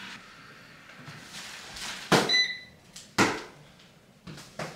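Household knocks as things are handled and moved: two sharp knocks about two and three seconds in, a brief high squeak just after the first, and a couple of softer knocks near the end.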